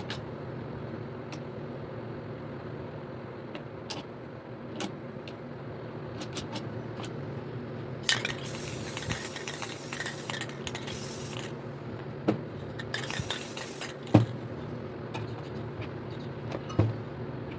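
Aerosol spray paint can spraying in two bursts of hiss, the first about three seconds long near the middle and a shorter one just after, among clicks and clinks of metal cans being handled and set down, over a steady low hum.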